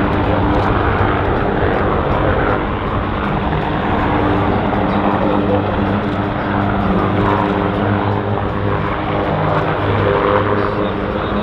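Military aircraft engines running steadily: a loud, unbroken drone with several steady engine tones under a roar of turbine and air noise.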